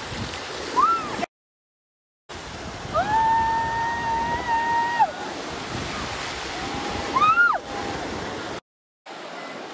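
Ocean surf washing in over a sandy beach as a steady hiss, broken twice by brief dropouts. Over it come high-pitched voice squeals, one held for about two seconds near the middle and another rising sharply near the end.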